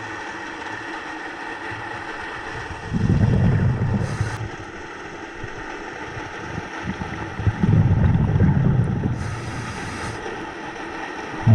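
Scuba diver breathing through a regulator underwater: a low rumble of exhaled bubbles twice, each followed by a short hiss of inhalation, with another exhale starting at the very end.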